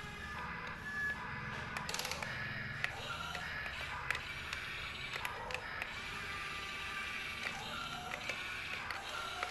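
Small motors and plastic gearboxes of a toy radio-controlled construction vehicle clicking and ratcheting, with sharp clicks scattered throughout.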